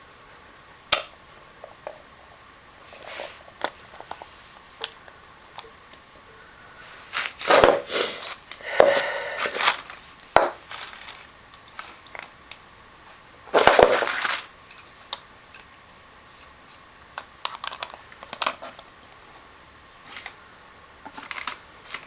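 Handling noises: scattered light clicks and knocks, with two longer rasping, crinkling bursts, the first about a third of the way in and the second just past the middle.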